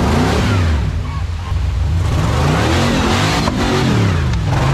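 Rock-crawler buggy engine revving, its pitch rising and falling several times.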